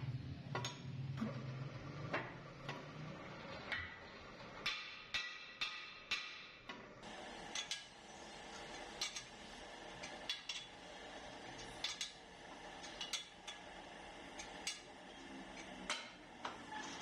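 Irregular sharp metal clanks and taps, some ringing briefly, as a cast-iron truck brake drum is clamped and trued in a lathe chuck. A steady hum runs beneath and grows a little louder about seven seconds in.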